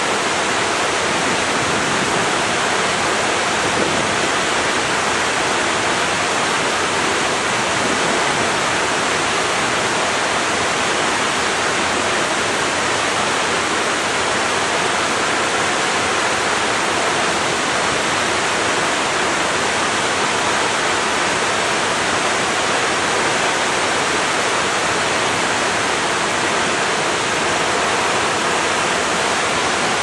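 Waterfall pouring onto white water at its base: a steady, loud rush of falling water.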